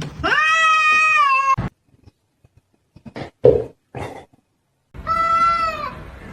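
A cat meowing twice: a long, drawn-out meow at the start, then after a pause with a few short faint noises, a second, shorter meow.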